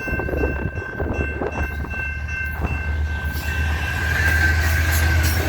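EMD GP9RM and GP38-2 diesel yard locomotives running, with a steady low engine rumble and a thin steady high-pitched tone. A few wheel clicks over rail joints come in the first few seconds, and a hiss rises over the last two seconds.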